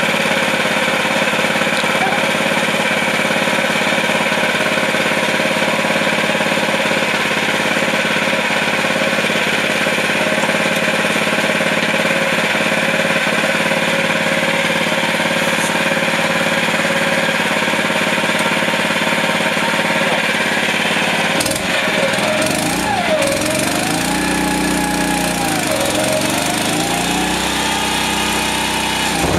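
Harley-Davidson XR750's air-cooled V-twin race engine running steadily at a fast idle. About two-thirds of the way through the sound changes abruptly, and the engine speed rises and falls twice as it is revved.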